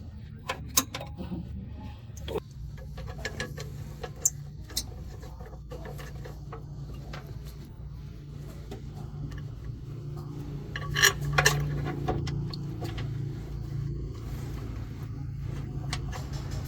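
An engine running with a low, steady hum that sets in a couple of seconds in, under scattered metallic clinks and knocks of tools and parts. The loudest are two sharp clanks about eleven seconds in.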